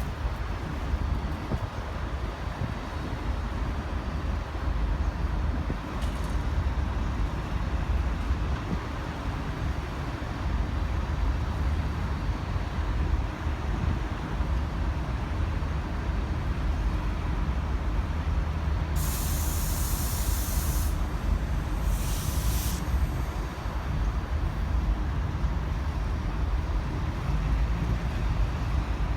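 Low, steady rumble of a diesel-electric locomotive, V/Line N class, with two sudden bursts of compressed-air hiss about two-thirds of the way through, the first about two seconds long and the second shorter, typical of air brakes venting.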